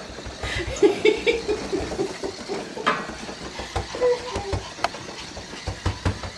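Yorkshire terrier grabbing and tossing a toy hedgehog: a quick run of short pitched sounds, about four or five a second, in the first two seconds, then scattered knocks and taps of the toy and the dog on the floor and stairs.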